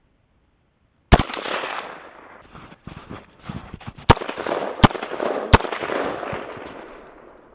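Four gunshots: one about a second in, then three in quick succession about three seconds later.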